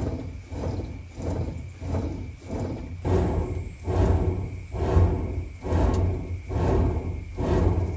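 Hand-pumped bellows forcing air into a small clay smelting furnace: rhythmic whooshing puffs about once a second, with weaker ones between, and the fire gusting with each stroke. The sound cuts off suddenly at the end.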